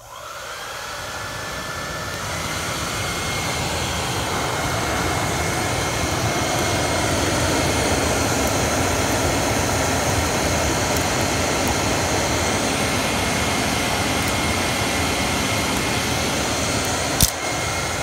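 Handheld hair dryer switched on and blowing a steady stream of air into a charcoal-fired clay furnace as its blower, the motor whine rising over the first couple of seconds and then holding steady. One sharp click near the end.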